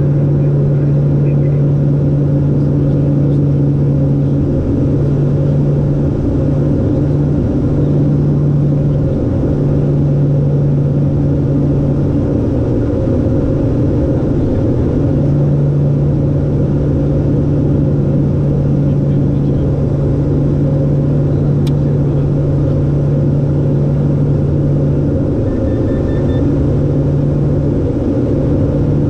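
The LET L-410's twin turboprop engines and propellers drone steadily, heard from inside the cabin on approach. A strong, low, steady hum sits over a broader rumble.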